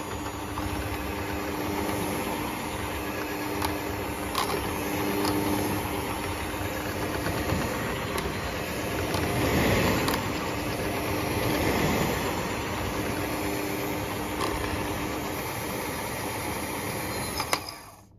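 Electric hand mixer running steadily, its beaters whipping an egg-white and sugar glaze in a steel pot, with a few light clicks along the way. The motor cuts off near the end.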